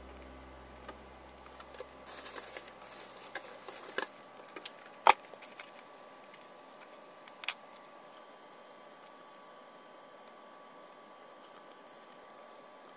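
Paper and card being handled on a table: rustling from about two seconds in, then a few light taps and one sharp click about five seconds in, and another click a couple of seconds later. Background music fades out at the start.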